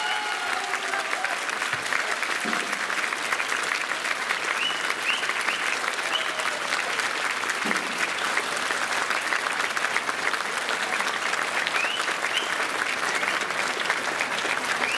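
Audience applauding steadily after a brass band's performance. The band's last chord is still dying away during the first second or so. Several short, high, rising calls or whistles sound over the clapping.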